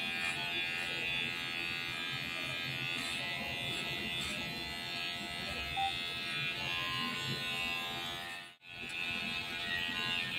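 Electric hair clipper running with a steady buzzing hum as it cuts hair over a comb to blend a fade. It breaks off for an instant about eight and a half seconds in, then runs on.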